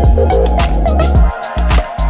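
Background electronic music with a steady beat and heavy bass.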